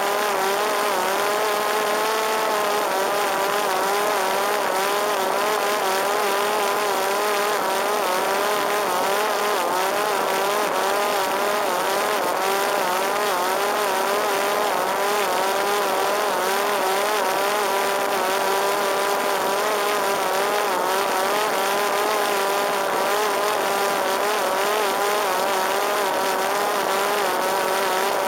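Parrot Disco fixed-wing drone's electric motor and pusher propeller whining steadily in flight, the pitch wavering slightly up and down, over a steady rush of wind.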